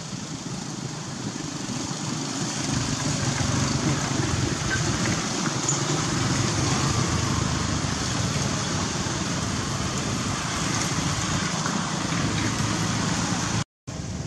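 Steady rumble and hiss of traffic noise, growing louder about two seconds in and cutting out for a moment near the end.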